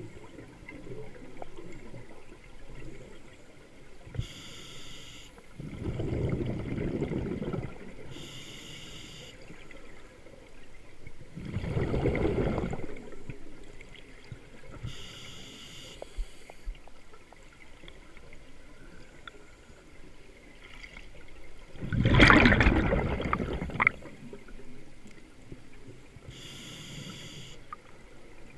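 A scuba diver breathing underwater through a regulator: short hissing inhalations through the demand valve alternate with three bursts of exhaled bubbles. The burst about two-thirds of the way through is the loudest.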